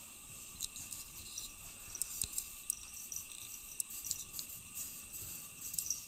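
Quiet steady high-pitched whine, like electrical noise on the recording, with light scattered crackles and scratches.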